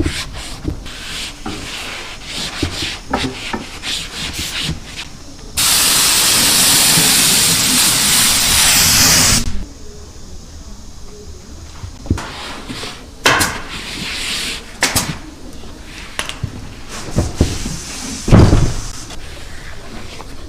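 A loud, steady hiss of compressed air for about four seconds, starting and stopping abruptly, like a pneumatic spray or blow gun. Before and after it come scattered knocks and clicks of work being handled.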